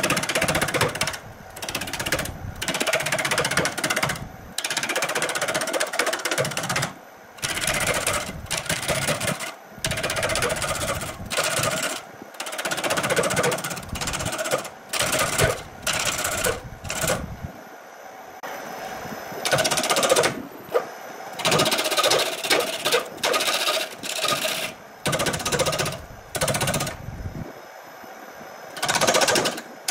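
Wood lathe spinning a large wooden cylinder while a hand-held turning tool cuts into it: loud scraping, chattering cuts in repeated passes of about a second each, broken by short pauses.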